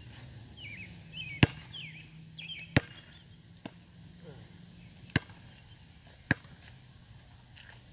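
A ball bounced hard on an asphalt court: five sharp smacks spaced unevenly about a second apart, the third one softer.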